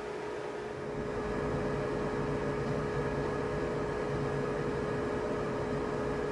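Bambu Lab H2S 3D printer running mid-print: a steady fan hum with a constant whine and the whir of the print head's motors, getting a little louder about a second in.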